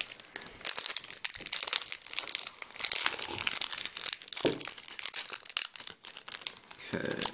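Foil booster pack wrapper crinkling and tearing as it is handled and opened by hand, with a dense run of quick crackles.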